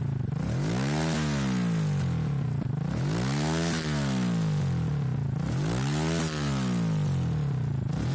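Mustang Dingo 125 motorcycle's single-cylinder four-stroke engine, breathing through a straight-through muffler, revved up and let fall back to idle three times, about every two and a half seconds.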